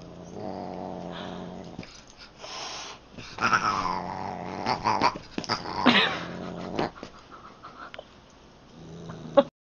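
Siamese cat growling and yowling at a large dog, in several drawn-out cries with short pauses between them.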